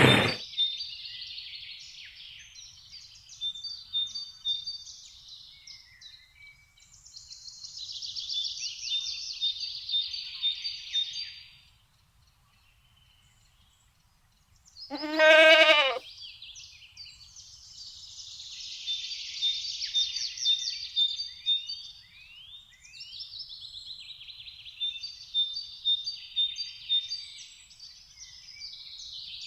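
A sheep bleats once, about halfway through, in a single loud call of about a second. Small birds chirp and trill in high repeated notes before and after it.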